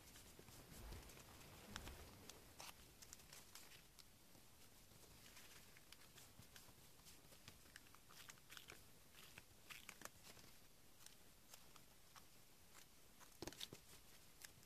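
Faint rustling and soft clicks of paper being folded and pressed flat by hand, with a few sharper snips near the end as scissors cut the paper.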